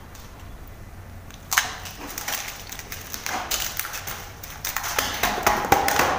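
Hand kneading wheat-flour dough in a steel bowl: an irregular series of squishing, pressing and thudding noises that starts about a second and a half in.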